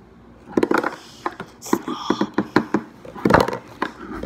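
A string of sharp knocks, taps and clatters from things being handled and set down on a table, with the loudest thump about three seconds in.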